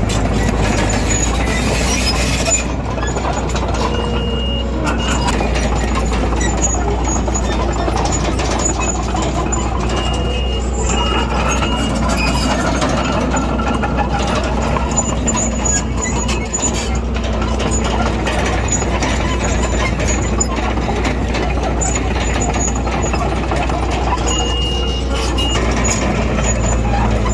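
Heavy diesel earth-moving machinery running steadily with a low drone. Short, high-pitched beeps come in a few times: a few seconds in, around the middle, and near the end.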